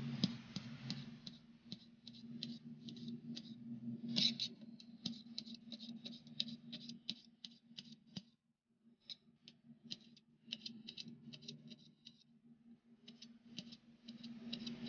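Kitchen knife slicing green beans on a plastic cutting board: quick, irregular taps of the blade, several a second, stopping briefly about eight seconds in. A low steady hum lies underneath.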